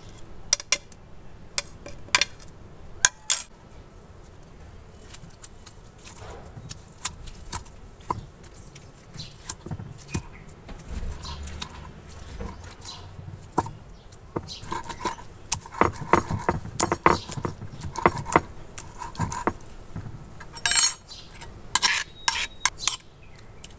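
Scattered knocks, clicks and scraping of a hand-held grinding stone crushing a tomato into chutney paste on a flat stone slab. Near the end a metal spoon scrapes the paste across the stone in a run of louder clicks.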